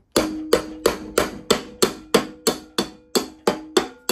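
Brass hammer tapping steadily on the nut of a mower deck blade spindle, about three strikes a second, each blow leaving a metallic ring, driving a pulley that is stuck tight off the spindle's splines.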